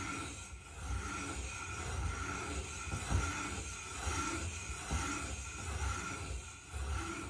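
Hand-turned Mira VG91 valve seat cutter scraping an inlet valve seat in a cast-iron Mini cylinder head, its profiled three-angle (30°, 45°, 60°) cutter rasping in repeated strokes about once a second as the handle is worked round.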